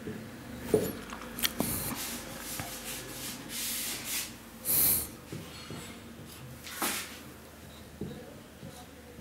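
Marker pen writing on a whiteboard: a series of short scratchy strokes, the loudest a little before the five-second mark, with a few sharp clicks of the marker against the board in the first two seconds.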